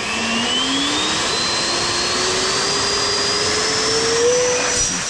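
The 90 mm electric ducted fan of a 3D-printed RC Viggen jet spooling up for a hand launch: a loud whine rising steadily in pitch, levelling off at full power about four seconds in.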